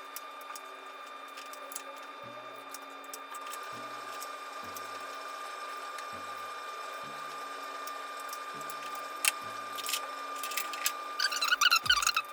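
Scattered light clicks and taps of hand work on a car engine bay, with a short burst of metallic clattering near the end, over a steady high hum.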